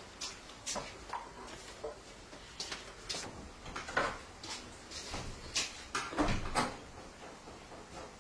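Scattered light knocks and clatter of objects being handled in a room, irregular, with louder knocks about four seconds in and again around six seconds in.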